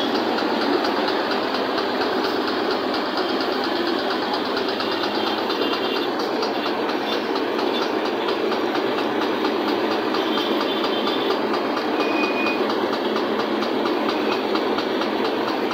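Metal lathe running, its chuck spinning a threaded shaft, with a steady mechanical clatter and a few brief, faint high whines.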